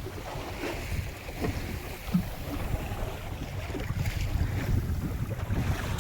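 Wind buffeting the microphone aboard a small spritsail boat, with water lapping at the hull and a brief low knock about two seconds in.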